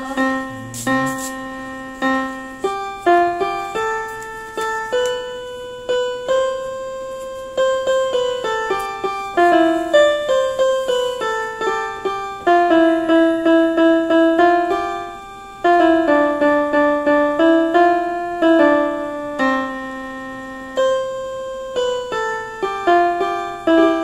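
Global GL444 electronic keyboard played with a piano voice: a slow melody over chords, each note fading after it is struck.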